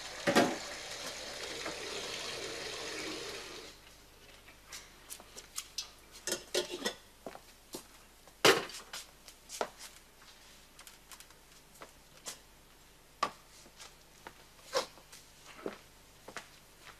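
Water running from a kitchen tap for about four seconds, then scattered clinks and knocks of metal kitchenware as a kettle and pot are handled, with one loud clank about halfway through.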